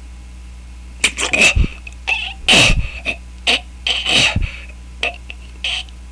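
A man making a series of short, loud mouth noises, starting about a second in, irregular and without words.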